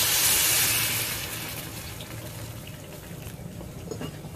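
Boiling water poured into a clay pot of fried tofu and cabbage, a splashing pour that tapers off over the first second or two and leaves a faint steady hiss.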